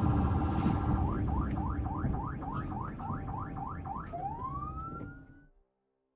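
Police car siren in a rapid yelp, about three to four rising sweeps a second, switching about four seconds in to a slower rising wail, over steady vehicle rumble and road noise. The sound cuts off suddenly near the end.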